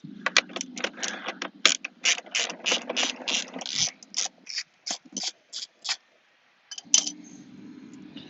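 Ratchet wrench clicking quickly as a bolt is backed out, the clicks slowing and stopping about six seconds in, then a few more clicks near the end.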